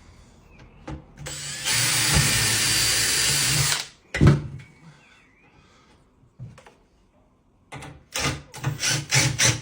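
Power drill running steadily for about two seconds. A single knock follows, and near the end come several short stop-start bursts from the drill, as screws are driven into a kitchen cabinet unit.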